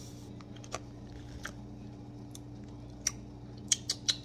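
Sharp light clicks of a clear plastic cup lid and drinking straw being handled, a few scattered at first and then a quick cluster near the end, over a steady low hum.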